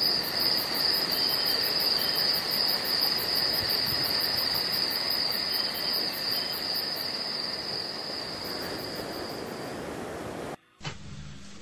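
Crickets trilling, a steady high-pitched chirring with a fast pulsing, over a steady hiss of surf. It fades over the last few seconds and then cuts off.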